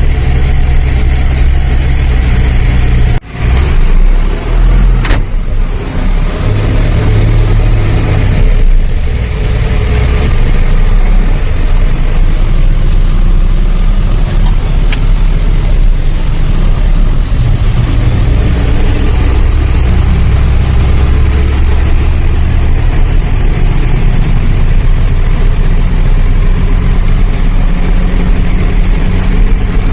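Truck engine running steadily, a loud continuous low drone, broken by a brief sudden drop about three seconds in.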